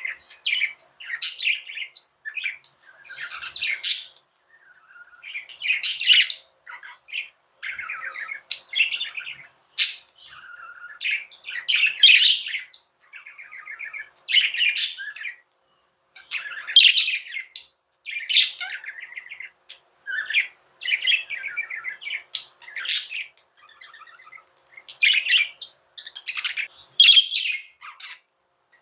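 Budgerigars chirping and warbling in a fast, continuous chatter of short varied notes, broken now and then by brief pauses.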